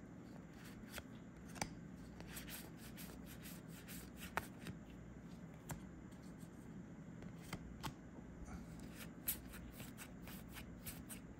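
Trading cards being flipped through and slid against each other by hand: faint soft rustles with scattered light clicks, over a low steady hum.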